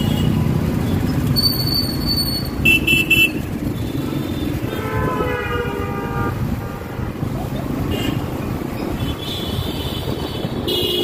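Motorbike riding through busy city traffic: a steady engine and road rumble, with vehicle horns tooting around it. Three quick horn beeps about three seconds in are the loudest sound, and longer horn tones come around five to six seconds and again near the end.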